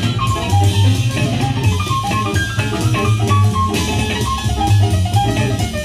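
Music with guitar, bass and drums played over a pair of vintage KLH Model Six two-way speakers, driven by a KLH Model Sixteen germanium-transistor amplifier and heard in the room. A melodic line of short notes runs over a strong, pulsing bass.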